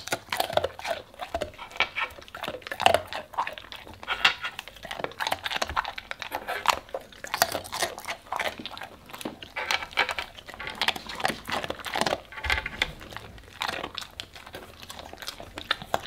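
Labrador retriever crunching and chewing small hard dog biscuits: a dense, irregular run of crunches.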